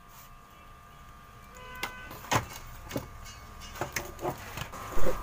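Scattered clicks and knocks of a CRT TV's circuit board and plastic cabinet being handled, with a louder thump about five seconds in, over a faint steady hum.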